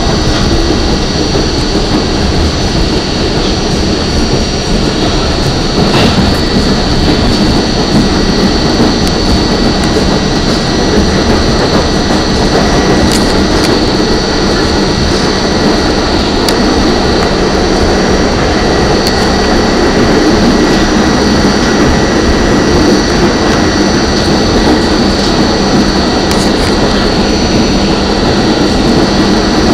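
R44 subway car running at speed, heard from inside the car: a steady, loud rumble of the wheels on the rails with a high, steady whine over it.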